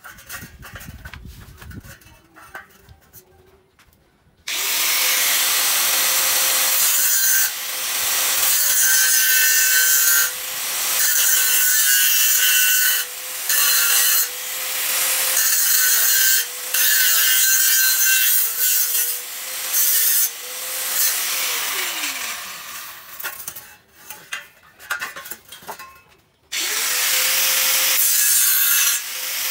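Angle grinder starting up about four seconds in and grinding into square hollow steel tube, a harsh grinding noise over a steady high motor whine that sags each time the disc bites. It is switched off past the middle and its whine winds down, then it is started again near the end.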